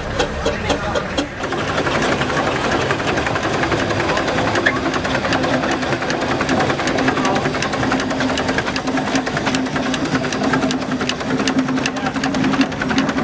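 Steam engine running, with a dense rapid mechanical clatter. About a second in the level rises and a steady low tone sets in and holds.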